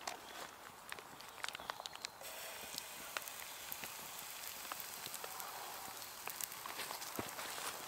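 Hot oil in a frying pan over a campfire crackling and spitting, then, about two seconds in, a steady sizzle starts as pancake batter hits the oil and begins to fry.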